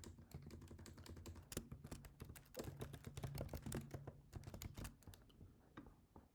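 Typing on a computer keyboard: quick, irregular key clicks that thin out about five seconds in, over a faint steady low hum.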